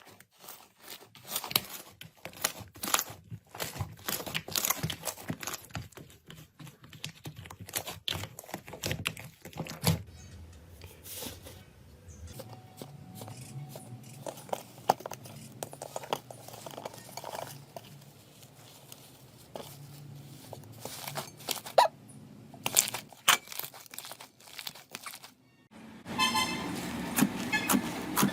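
Slime being squeezed, stretched and poked by hand, making many small crackles and pops. The sound changes abruptly about ten seconds in to a softer, squishier texture with a few louder snaps, and changes again near the end to a louder, steadier sound with a few held tones.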